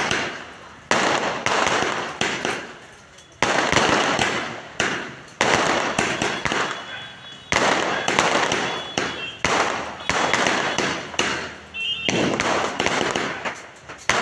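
Multi-shot aerial firework cake firing shell after shell, about one sudden bang a second, each trailing off before the next.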